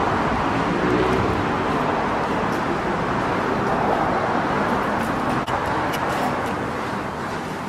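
Steady road traffic noise, with a single sharp click about five and a half seconds in.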